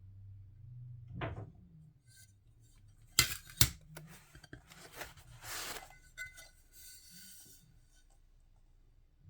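Small stained glass sheets handled as they come out of their packaging: two sharp clinks of glass a little past three seconds in, then rustling and sliding of glass and wrapping.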